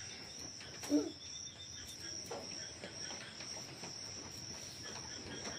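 Crickets trilling in one steady, high-pitched drone. About a second in, a small child makes one short voice sound.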